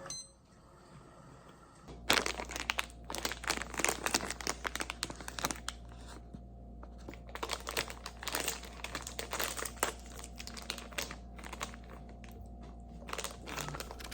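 Crinkly material being handled: a dense run of small irregular crackles and rustles that starts about two seconds in, over a steady low hum.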